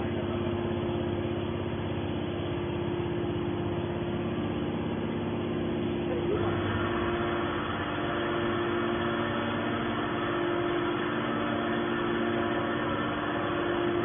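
Hydraulic scrap metal baler's pump unit running with a steady hum; about six seconds in, a higher whine joins in and holds.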